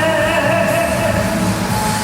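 A singer holding one long note with a slight wobble, over band accompaniment with a steady beat.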